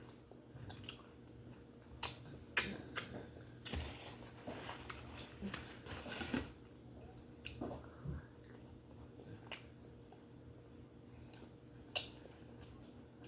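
Close-up chewing of steamed conch meat, with sharp wet mouth clicks and smacks. The sounds are busiest from about two to six and a half seconds in, then sparse, with one more sharp click near the end, over a faint steady hum.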